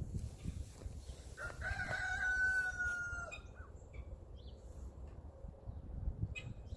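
A rooster crowing once, about a second and a half in: one long, level call lasting about two seconds.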